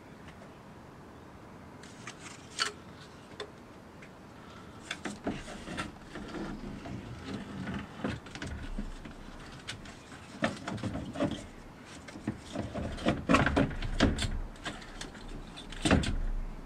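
Plastic radiator fan shroud of a Volkswagen Golf Mk5 being worked down into position behind the radiator: scraping and rubbing of plastic with irregular knocks and clicks, busiest and loudest near the end.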